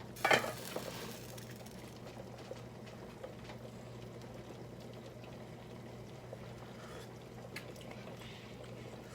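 Pot of chicken soup with dumplings boiling, a steady low bubbling, with a brief knock about a third of a second in.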